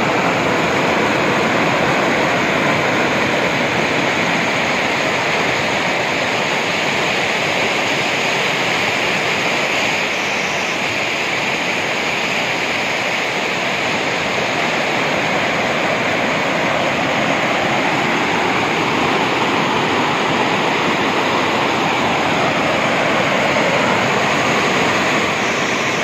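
Waterfall: fast white water pouring over rock close to the microphone, a loud, steady rush of water.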